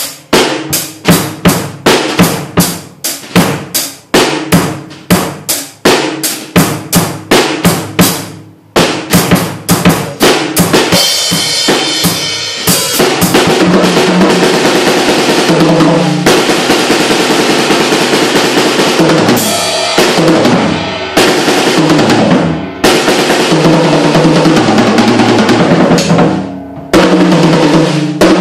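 Acoustic drum kit played solo: separate, spaced hits on drums and cymbals for the first several seconds, then fast, dense playing with cymbals ringing continuously, broken by a few short pauses.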